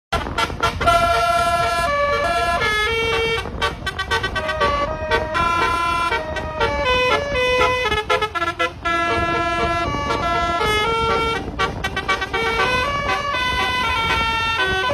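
Indonesian bus telolet horn of the basuri type playing a melody: a run of held and stepping horn notes, over a low rumble.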